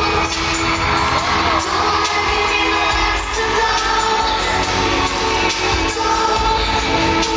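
Amplified pop music with a woman singing over it, played through a large arena sound system.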